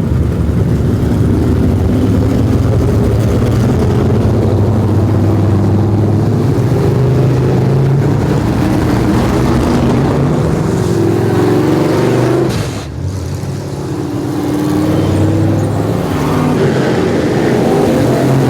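Street Stock race car engines running on a dirt oval, their pitch rising and falling as the cars go through the laps, with a short dip in loudness about two-thirds of the way through.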